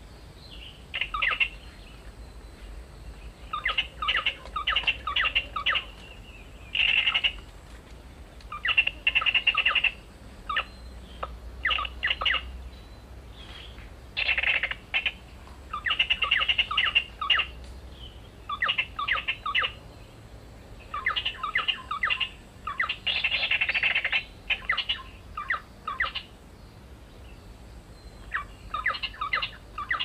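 Bold-striped tit-babbler (ciung-air coreng) calls: fast runs of repeated chattering notes, each run about a second long, coming again every second or two.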